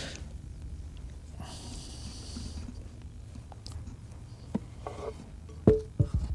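Sharp knocks of a wooden chopping board being lifted and set down on a table, the loudest about five and a half seconds in, followed by a few more. Before them comes a brief rustle about a second and a half in, over a steady low rumble.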